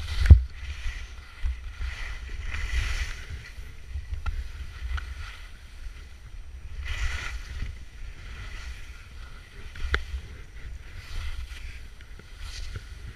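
Skis carving turns through snow, a hissing scrape with each turn, over a steady low rumble of wind buffeting the microphone. A sharp knock comes just after the start, and a smaller one about ten seconds in.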